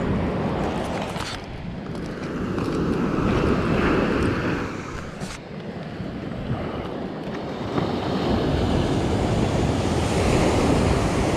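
Ocean surf breaking on the beach, swelling and easing, with wind buffeting the microphone.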